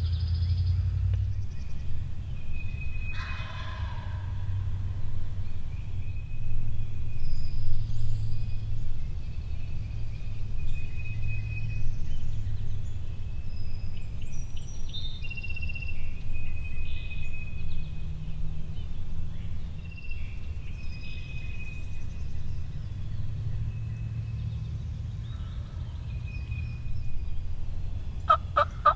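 Eastern wild turkey gobbling: a rattling gobble a few seconds in and a louder one near the end. Songbirds call throughout over a steady low rumble.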